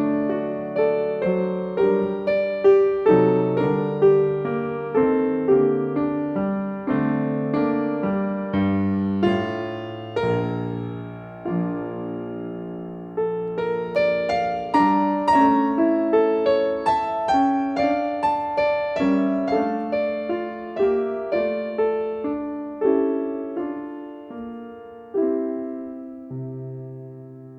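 Slow solo piano music: single notes and chords struck one after another and left to ring out.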